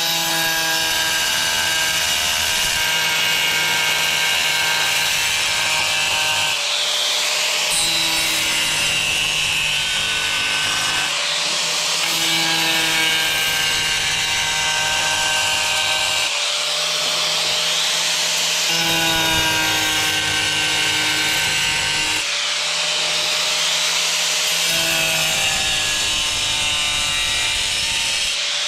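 Angle grinder cutting a hole in a tile, run slowly and gently: a steady grinding rasp under the motor's whine, which shifts in pitch every few seconds as the blade is worked into the tile.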